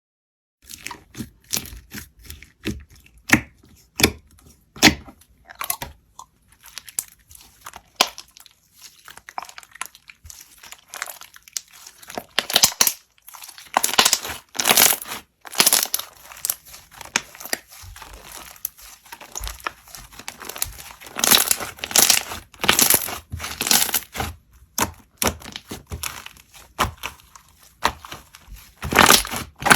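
Slime being squeezed and poked by hand, making irregular crackling clicks and pops, sparse at first and denser and louder from about halfway through.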